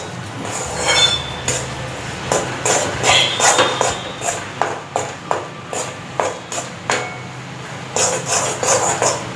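A spatula scraping and knocking against a metal frying pan while stirring a thick paste of flour roasting in ghee. The strokes are irregular, about one or two a second.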